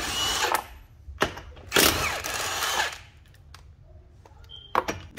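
Milwaukee cordless impact wrench hammering the 21 mm lug nuts off a car wheel in two bursts: one ends about a second in, and the second runs for over a second. A few light clicks follow near the end.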